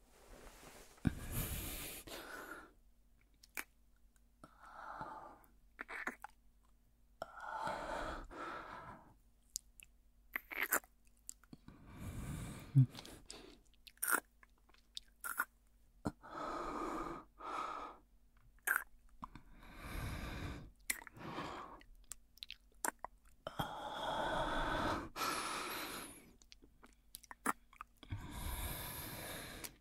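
Close-miked kissing sounds: sharp, wet lip smacks scattered throughout, between soft breaths that swell for about a second at a time.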